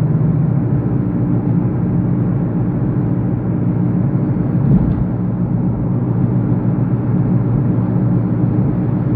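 Car driving along, heard from inside the cabin: a steady engine and road hum with a low drone, and a single short knock about halfway through.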